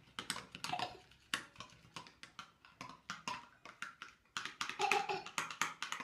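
Spoons stirring and mashing thick slime paste in glass bowls: irregular clinks and scrapes of spoon against glass.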